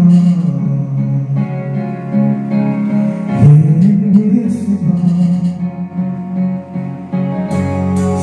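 A karaoke song playing from an HDT Premier-98i DVD karaoke player: a slow guitar-backed ballad with a voice singing along.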